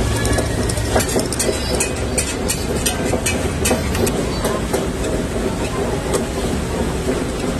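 Metal spatula scraping and tapping on a flat dosa griddle as the topping is mashed and spread, a run of quick clicks and scrapes in the first few seconds. Under it a steady low rumble of background noise.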